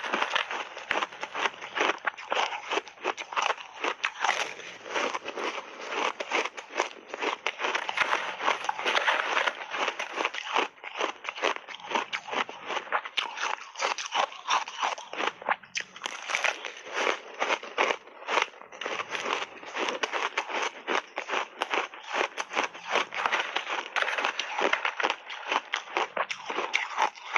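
Chewing a big mouthful of crushed ice frozen with mixed fruit pieces, picked up by a lavalier mic close to the mouth: dense, continuous crunching and crackling, full of sharp cracks.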